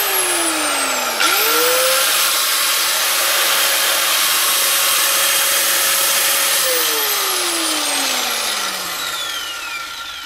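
Energer budget angle grinder switched on, released almost at once and switched on again about a second in; it runs at a steady high whine for about five seconds, then is switched off and its motor winds down, the whine falling in pitch as it fades.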